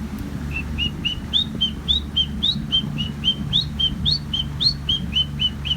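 A man whistling an imitation of a roadside hawk's call: a rapid series of short, high, upward-flicking notes, about four a second, starting about half a second in.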